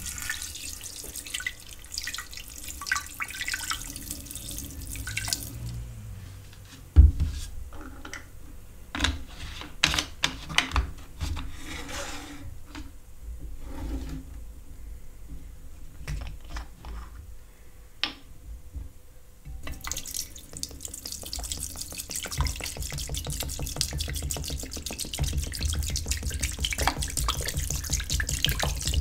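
Liquid poured in a stream into a glass jar with a rusty iron in it: first muriatic acid from its bottle, then, after a sharp knock about seven seconds in and a stretch of clicks and taps as plastic bottles are handled, a steady pour of water from a plastic bottle for the last nine seconds or so.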